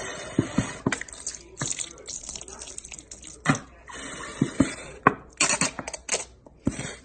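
Runny ketchup squirted from a squeeze bottle onto a hot dog on a plate. It makes a hissing, sputtering stream with many irregular wet splats as the sauce lands and pools.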